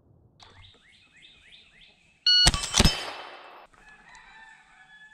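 A shot-timer beep, then two quick shots from a short-stroked 1873 Winchester lever-action in .32-20 about a third of a second apart, with steel targets ringing on afterward. Before the beep, a bird calls in a quick run of falling notes.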